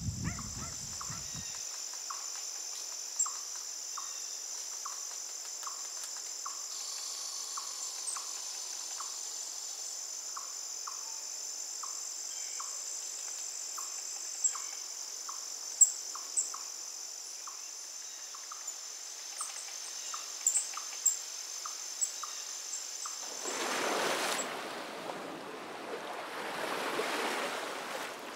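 Outdoor insect chorus: a steady high-pitched buzz with a soft, regular ticking call and a few short bird chirps. Near the end the buzz stops and a broad rushing noise swells in.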